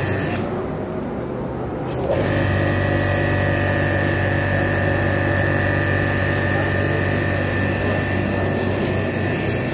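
Rico Italy RI-S6 electric pressure washer's motor and pump kicking in about two seconds in, then running steadily with a low hum and a high whine.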